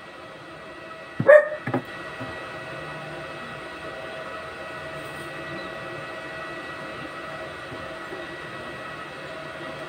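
A dog barks about a second in, a short double bark. It is followed by a steady crackling hiss from stick welding on the steel-tube frame.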